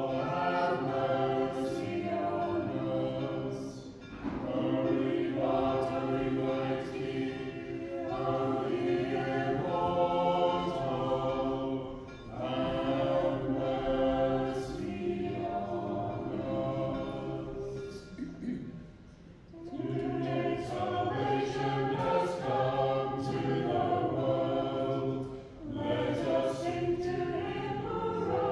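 Small choir of voices singing unaccompanied Orthodox liturgical chant, in long phrases with brief pauses between them.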